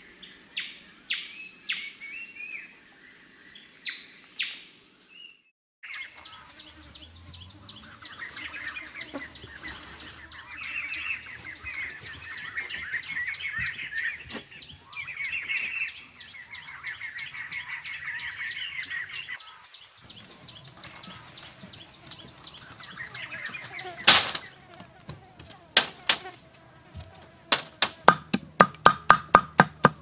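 Forest ambience: insects drone in a steady high whine while birds chirp. Near the end come a few sharp knocks, then a quick run of strikes at about three a second as a digging tool chops into the ground.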